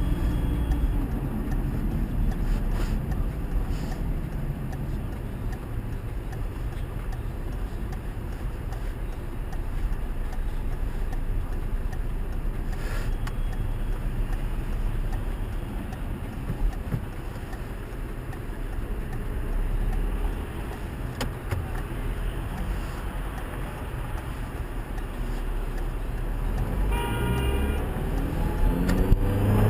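Road and drivetrain noise of a car on the move, a steady low rumble, with a short pitched tone near the end. The extraneous noise the driver is filming for cannot be singled out.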